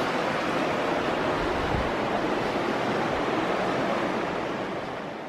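Steady wind rushing over the microphone, with occasional low buffeting, fading out near the end.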